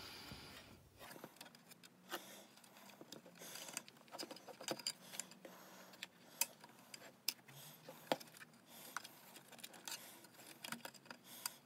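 Faint, scattered clicks and taps from hands working a zip tie and cable inside a plastic security-camera housing, with a couple of sharper clicks about six and eight seconds in.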